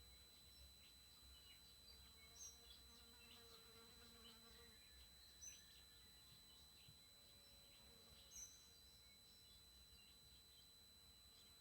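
TriStar TS-MPPT-60 solar charge controller giving off a faint, steady high-pitched squeal, with brief bird chirps over it. The owner hears this squeal first thing in the morning, last thing at night, and as the controller switches between MPPT and absorption charging stages.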